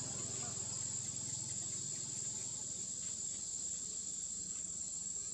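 Insects droning steadily at a high pitch.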